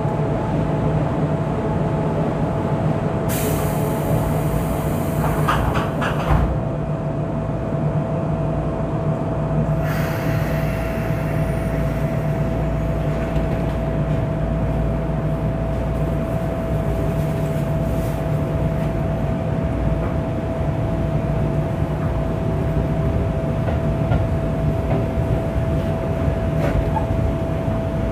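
Keisei 3500 series electric commuter train running, heard from inside the car: a steady rumble with a constant whine. A hiss joins for a few seconds about three seconds in, and again from about ten seconds in.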